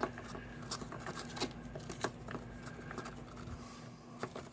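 Paper and cardstock layers of a box card being handled and squeezed together: scattered small clicks, taps and rustles, about half a dozen, over a faint steady hum.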